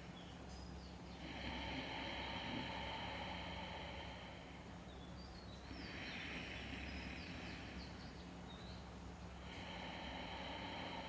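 Ujjayi pranayama breathing: slow, complete breaths drawn through a gently constricted throat, giving the soft 'baby snoring' sound of unforced Ujjayi. Three long breath sounds of about two to three seconds each, with short pauses between.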